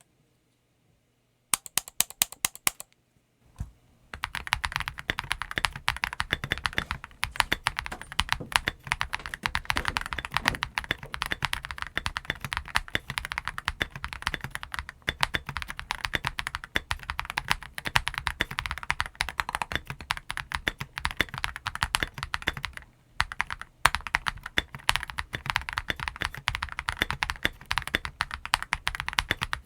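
Typing on a Tiger Lite TKL mechanical keyboard with Vintage White linear switches and MT3 keycaps. A short quick run of keystrokes comes about two seconds in, then steady fast typing from about four seconds on, with a brief pause near the end.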